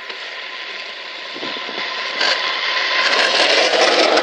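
Drift trike rolling downhill on asphalt, its hard rear wheels scraping and sliding across the road surface, growing louder as it nears and passes close by.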